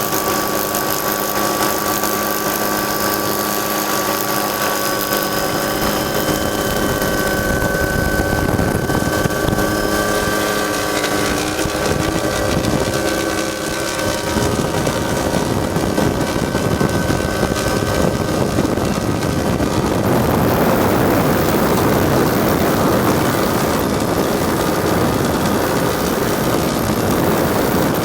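Helicopter running in flight: a steady turbine whine over the rotor noise, with a broad rushing noise building up about two-thirds of the way through.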